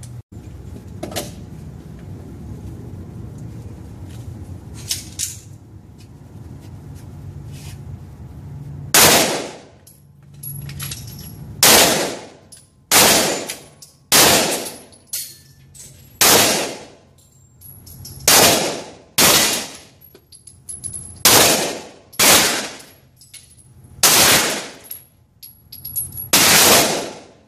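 Gunfire: after a few faint clicks, single shots begin about nine seconds in and go on at roughly one a second. Each shot is sharp and loud, with a short ringing tail.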